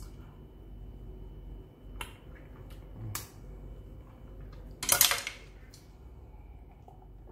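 A wooden stir stick clicking and tapping against a plastic cup of protein shake a few times, then a louder, noisy burst about five seconds in as the cup is lifted to drink.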